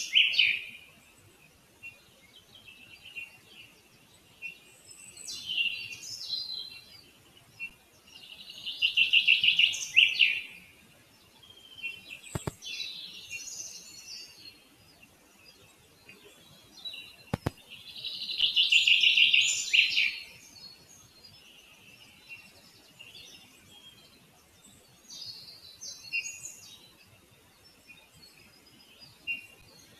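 Forest songbirds singing: loud, high song phrases of a second or two every several seconds, with softer calls in between. Two brief sharp clicks near the middle.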